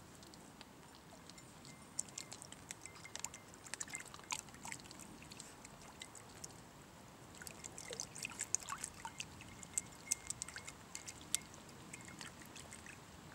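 Papillon puppies lapping and splashing at water in a glass vessel: scattered small laps, splashes and drips, in two busy spells, one about two seconds in and another from about seven to eleven seconds in.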